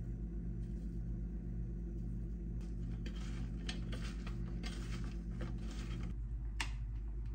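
Raw julienned carrot and cucumber being tossed by hand with salt in a stainless steel tray: a run of rustling and soft clicks against the metal in the second half, ending in one sharp tap. A steady low hum runs underneath.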